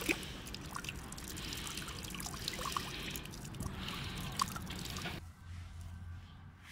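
Thin stream of water from a public drinking fountain's spout splashing and trickling over a rugged smartphone held in the hand, with scattered drips. The water sound cuts off about five seconds in, leaving it much quieter.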